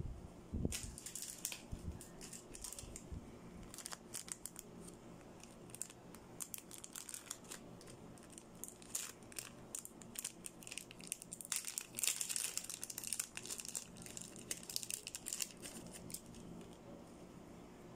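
Small clear plastic packaging being crinkled and handled, with sharp crackles coming on and off and the densest run a little past the middle. A soft knock comes right at the start.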